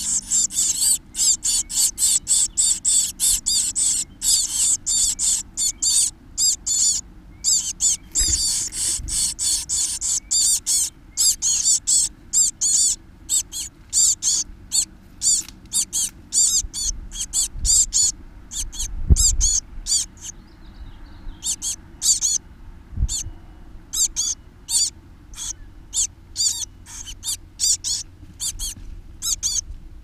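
Nestling songbirds begging inside a nest box: rapid, high-pitched peeping calls, several a second, loudest at the start while the parent is feeding them and continuing after it has gone. A few low thumps come from the box around the middle.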